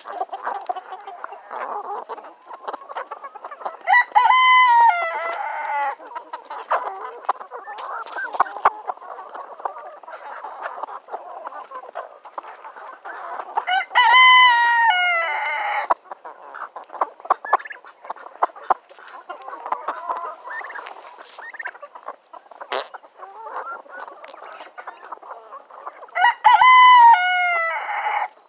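Rooster crowing three times, about ten seconds apart, each crow about two seconds long and falling in pitch at the end. Between the crows, hens cluck continuously and there are many short clicks of pecking at the ground.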